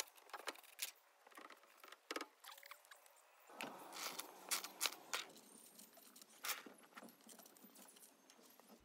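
Light, irregular clicks, taps and rustles of food being put together by hand: plates being handled, a plastic sauce bottle squeezed over bacon, and a knife working on a bread bun.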